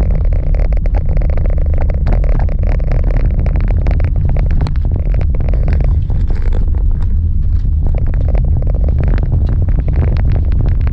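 A vehicle driving on a gravel road, heard from inside the cabin: a steady low rumble of tyres and engine, with many small irregular clicks and crackles of gravel under the tyres.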